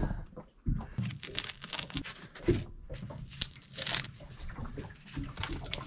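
A piece of foam being torn and worked into shape by hand: an irregular run of short scratchy tearing and rustling sounds.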